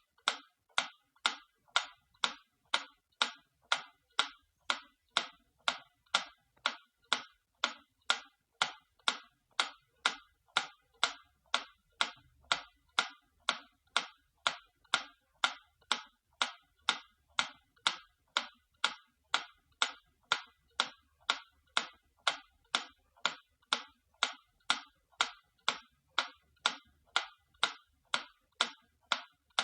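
Antique clock ticking steadily, about two sharp ticks a second.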